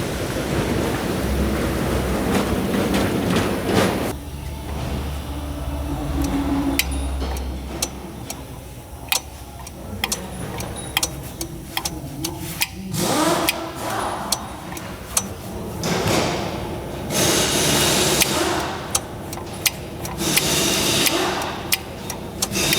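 Sharp metallic clicks and knocks scattered through workshop noise, from a VW Amarok's dual-mass flywheel being worked by hand with the gearbox off. The clacking is the click heard at idle, the sign of a worn dual-mass flywheel with a lot of play.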